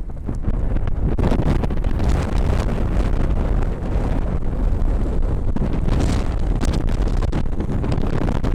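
Strong gusty wind buffeting the microphone, a heavy, fluctuating rumble from high winds with gusts in the 40s mph.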